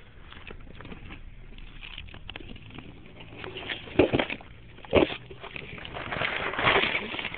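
Handling noises as things are moved about: light clicks and rustles, two sharp knocks about four and five seconds in, and a burst of rustling near the end.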